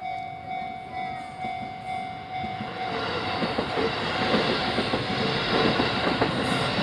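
Japanese level-crossing warning bell ringing at about two strokes a second. About three seconds in, a Keisei Matsudo Line train reaches the crossing and passes over it, its wheels clattering on the rail joints and growing louder until they drown out the bell.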